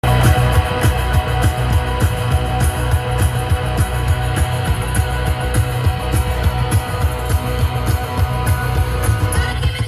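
Rock music with guitar and a heavy, steady beat.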